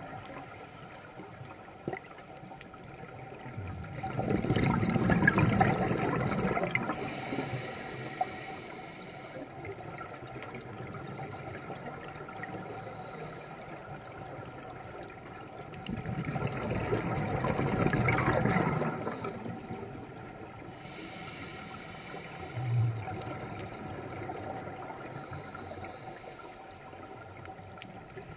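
A scuba diver's regulator breathing underwater: two long rushes of exhaled bubbles, about four seconds in and again about sixteen seconds in, each lasting a few seconds, over a steady low hiss of water. A brief low knock comes later.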